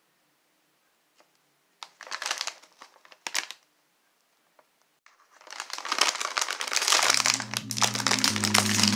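Plastic snack-chip bag crinkling as it is handled, in two short bursts about two seconds in, then continuous loud crinkling as it is pulled open from about five seconds in. Background music comes in near the end.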